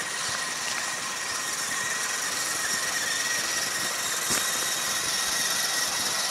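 Several electric RC scale off-road trucks driving along a dirt track: a steady whine of small motors and gears over the crunch of tyres, with footsteps of people walking alongside.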